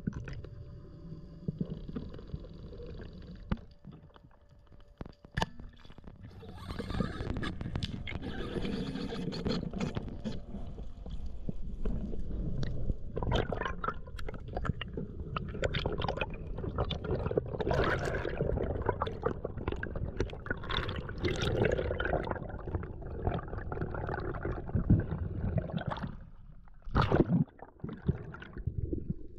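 Underwater water noise picked up by the camera: bubbles gurgling and water rushing, with scattered short knocks and clicks. It dips quieter twice, with a louder burst of bubbling just after the second dip.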